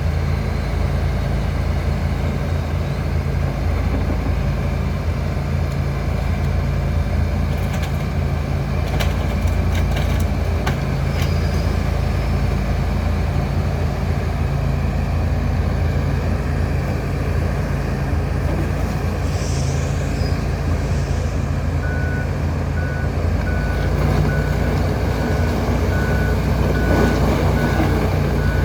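John Deere 245G LC hydraulic excavator's diesel engine running steadily under load while it works, with a few sharp cracks about a third of the way in. Near the end a steady beeping alarm starts, about one to two beeps a second.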